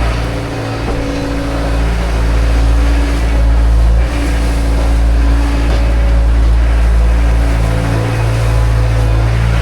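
Manitou telehandler's diesel engine running steadily.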